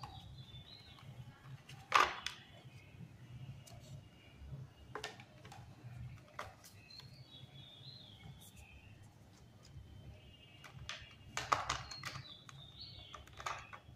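Clear plastic clamshell packaging being handled and opened: a few sharp plastic clicks and knocks, the loudest about two seconds in and a cluster near the end, over a low steady hum.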